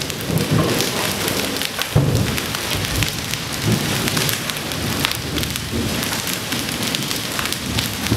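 Hailstones mixed with rain pelting a wet paved surface, a dense steady patter of small hits.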